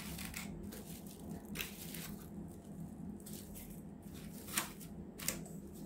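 Faint crinkling of plastic wrapping and soft handling noises as a piece of raw meat is unwrapped and set down on a plastic tray, with a few short sharper rustles near the end.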